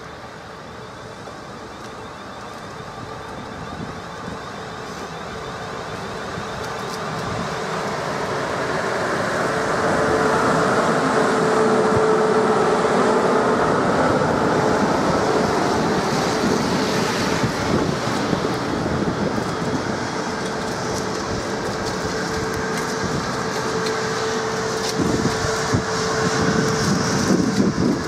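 South Western Railway third-rail electric multiple unit drawing slowly past, with wheels on the rails and a steady motor tone, growing louder over the first ten seconds. A few sharp crackles come near the end, from the collector shoes arcing on the snow-covered third rail.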